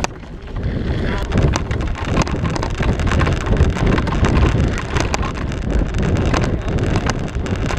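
Wind buffeting the microphone of a bike-mounted camera, with a constant rattle of short clicks and knocks and a low rumble as the mountain bike rolls over a bumpy dirt-and-grass track.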